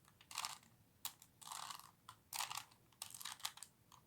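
3x3x3 Rubik's Cube layers being turned in a quick series of moves: the plastic pieces click and rattle in short bursts, several each second.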